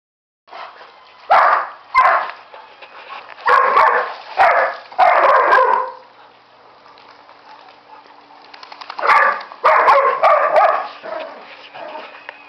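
A dog barking: a run of loud barks, a pause of a few seconds, then another run.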